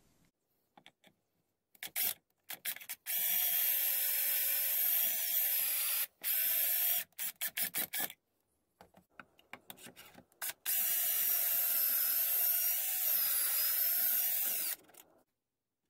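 Cordless drill with a stepped pocket-hole bit boring pocket holes through a jig into a decking board. There are two steady runs of about three and four seconds, with short trigger blips and clicks between them.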